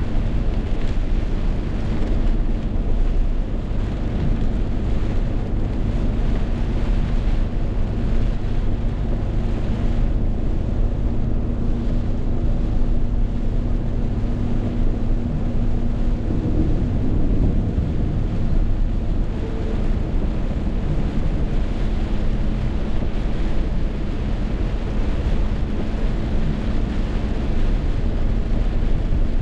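Rainstorm: wind and rain making a steady, heavy rumble on the microphone, with a faint steady low hum underneath.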